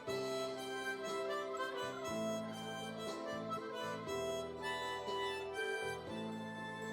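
Harmonica playing a slow melody in held notes and chords.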